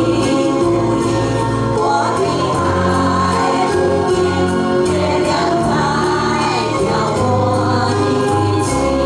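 A group of amateur singers singing a Chinese popular song together in chorus over an instrumental backing track with a steady, slowly changing bass line.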